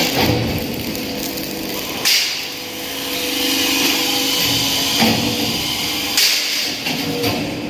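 Workshop noise: a machine running steadily with a constant hum, and a few sharp knocks, about two, five and six seconds in.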